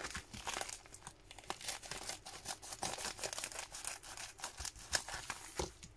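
Scissors cutting through a plastic mailer pouch: a run of irregular snips with the plastic crinkling.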